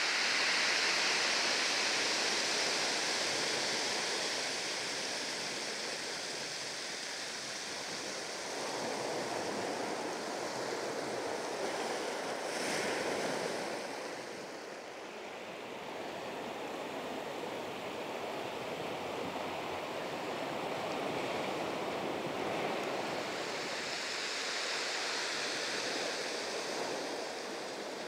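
Small sea waves breaking over rocks and washing up a shingle beach: a steady hiss of surf that swells and eases every several seconds, loudest near the start.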